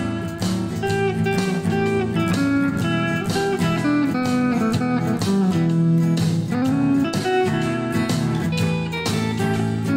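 Background music: the instrumental break of a blues-rock song, a guitar lead with sliding notes over a band.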